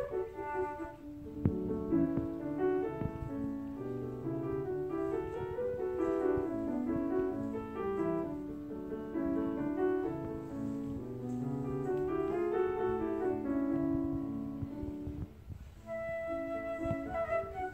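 Flute and piano in a classical recital piece: the grand piano plays an interlude alone while the flute rests, and the flute comes back in near the end with a sustained high line over the piano.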